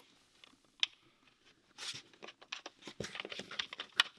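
Light clicks and knocks of parts being handled and fitted in a car's engine bay. There is one sharp click about a second in, a brief rustle near the middle, and a quick run of clicks in the last second or so.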